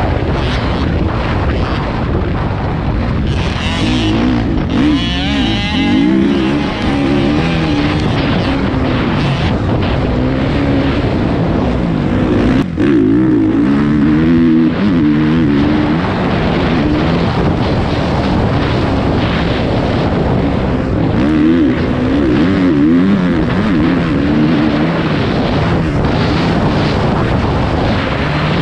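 Dirt bike engine heard from the bike itself, revving up and down again and again as it is ridden hard around a motocross track. The sound drops out for an instant about twelve seconds in.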